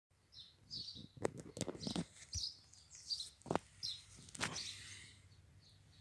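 Eurasian blackbird on the ground giving short high chirps, about two a second, with a few sharp knocks and thumps of handling in between.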